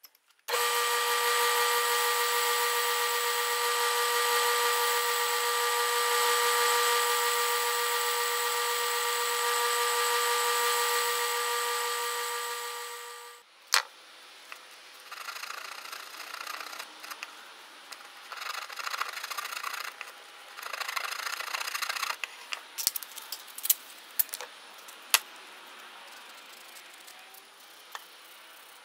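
Small benchtop belt sander running steadily while a purpleheart wooden ring is sanded on the belt. It shuts off with a click about halfway through. Then comes quieter, patchy hand sanding of the ring with sandpaper, with scattered light clicks.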